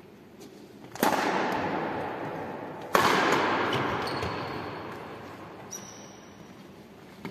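Two loud bangs about two seconds apart, each one ringing on and slowly fading over several seconds.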